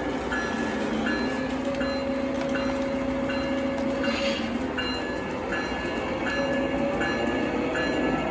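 O gauge model diesel locomotive running along three-rail track: a steady engine drone over the rumble of wheels and motor, with a short bell-like ding repeating about every two-thirds of a second.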